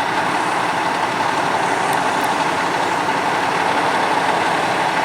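Fire engine's diesel engine running steadily at idle.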